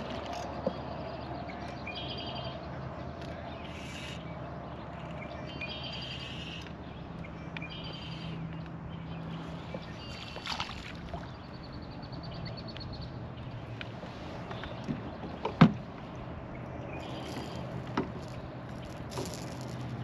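Boat ambience: a steady low hum under short trilling bird calls that come and go, with a few sharp knocks, the loudest about fifteen seconds in.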